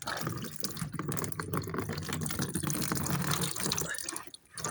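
Water rushing out of a washing machine's opened drain-pump filter housing into a bucket. The flow stops for a moment near the end, then comes back stronger. This is standing water trapped in the drum because the pump filter is blocked.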